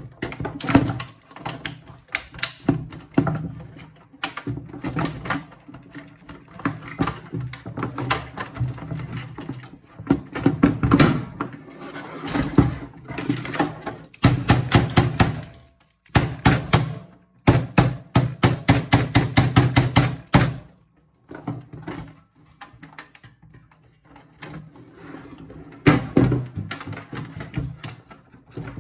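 Hand tools and computer parts knocking and rattling against a metal PC case while it is taken apart, with runs of quick clicks in the middle and a brief pause between them.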